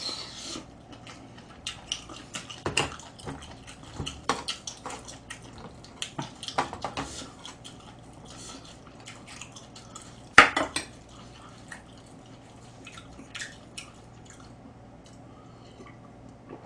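A metal spoon clinking and scraping against a thin yellow aluminium pot and a small bowl while eating. It is a scattered run of light clicks, with one louder knock about ten seconds in.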